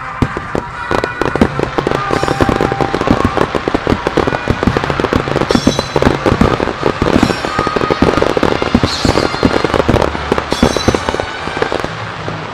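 A dense barrage of aerial firework shells bursting, many sharp bangs a second, starting abruptly and thinning out near the end.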